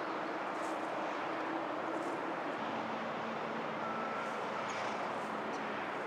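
Steady hum of distant road traffic, its low engine tone shifting pitch partway through. A few faint crackles of dry leaves come through as a blackbird flicks through the leaf litter.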